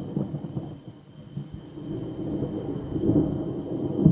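Rolling thunder from a severe thunderstorm: a low rumble that fades after a loud clap as it opens, then swells again and grows loudest near the end.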